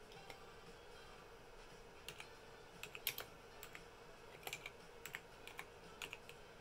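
Typing on the Toshiba SPARC LT AS1000 laptop's keyboard: a run of light, irregular key clicks starting about two seconds in.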